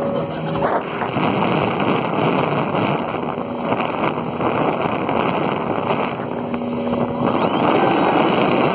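Motorboat under way at speed: a steady rush of wind on the microphone and water spray, with the engine's hum coming through briefly near the start and again past the middle.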